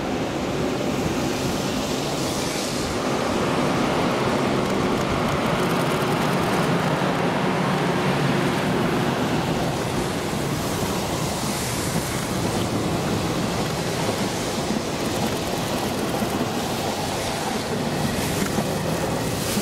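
Electric locomotive towing a rake of unpowered Izukyu 2100 series passenger cars past on a delivery run: a steady wheel-on-rail running noise that grows a little louder mid-way, with wind on the microphone.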